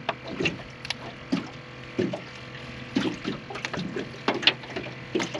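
Irregular short knocks and slaps in and around a small aluminum fishing boat on choppy water, with a steady low hum underneath.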